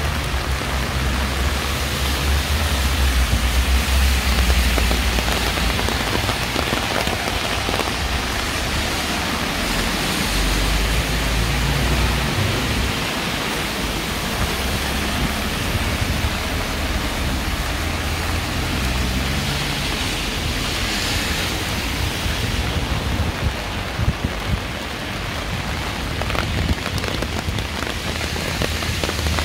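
Steady rain falling and splashing on surfaces, an even hiss throughout, with a low rumble that comes and goes underneath.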